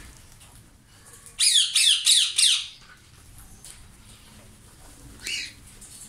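Indian ringneck parakeet screeching: a rapid run of about five harsh calls, each falling in pitch, then one more call near the end.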